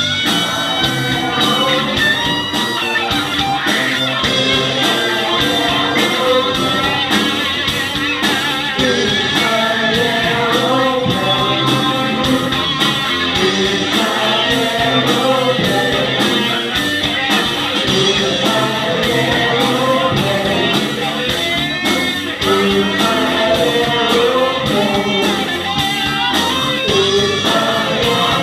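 Live rock band playing a passage without lyrics, with electric guitar and a steady drum beat.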